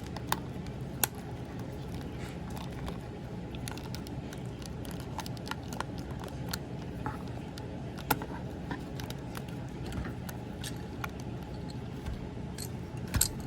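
Small, sharp plastic clicks and taps of an MPM Ratchet transforming action figure being handled, its parts folded and tabbed into place, scattered irregularly over a steady low hum.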